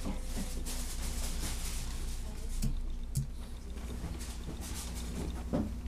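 Quiet room tone: a steady low hum with faint rustling and a couple of soft knocks about three seconds in.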